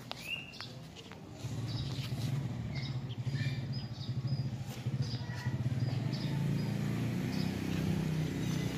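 A motor engine running steadily, coming up about a second and a half in and holding on, with small birds chirping here and there.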